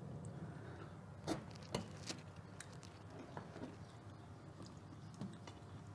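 A metal skewer being forced through a raw piglet carcass against the steel spit: faint handling noises with a few sharp clicks between about one and two and a half seconds in, over a low room hum.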